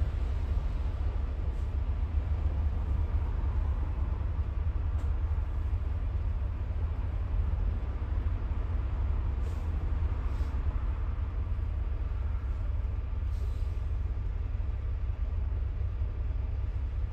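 Riding inside a city bus: a steady low rumble of engine and road noise, with a few faint clicks.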